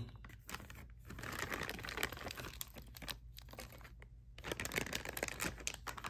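Thin clear plastic bags crinkling and rustling as hands handle the bagged parts and set them down, with small clicks and taps among the crackle. It pauses briefly about a second in and again around three and four seconds.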